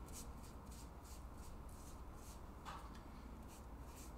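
Pastry brush painting roux onto thin rolled-out dough, making faint soft swishes at about three strokes a second, with one slightly fuller stroke near the end.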